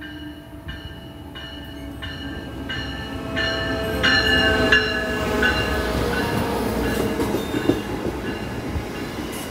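Amtrak Siemens Charger SC-44 diesel locomotive pulling a passenger train into the station and close past, its bell ringing in even strokes about every 0.7 s for the first five seconds over a low engine note that slowly falls in pitch. The sound is loudest as the locomotive passes about four seconds in, then the passenger cars rumble and click past.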